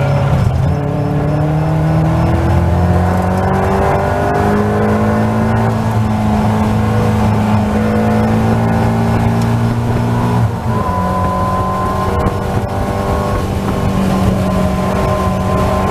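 Caterham Seven race car engine heard from the cockpit under hard acceleration, its note rising steadily with revs. About ten and a half seconds in the pitch drops suddenly at an upshift, and it pulls on in the next gear.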